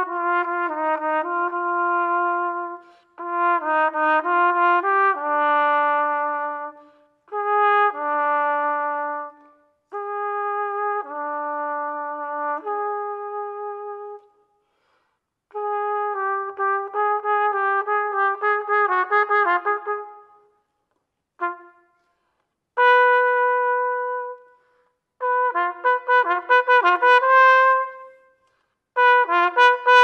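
Solo trumpet playing unaccompanied, in melodic phrases broken by short silences. Near the end the phrases turn into quick flurries of notes.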